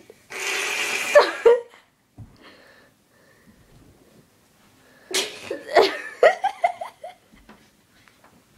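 A person laughing: a loud, breathy burst of laughter about half a second in, then a few seconds of quiet and a second run of short laughs about five seconds in.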